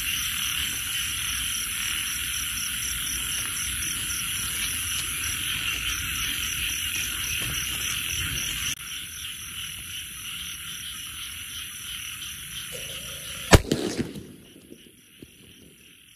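A firecracker goes off inside a carved pumpkin about three-quarters of the way in: one sharp, loud bang that blows the pumpkin apart, with a few smaller knocks just after. Beneath it runs a steady night chorus of frogs and insects.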